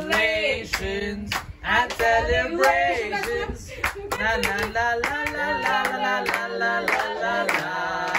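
Several voices singing a celebration song together, with hands clapping along in time.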